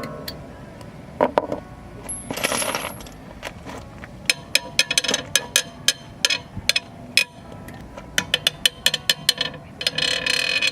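Irregular series of sharp metal-on-metal strikes that ring, coming in quick clusters of several a second: hand tools working a socket on a seized wheel-lock lug nut.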